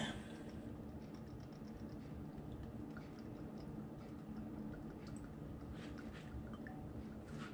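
Cooking oil poured from a bottle into an empty nonstick pan: a faint trickle with scattered small drips and ticks over a low steady hum, and a small click near the end.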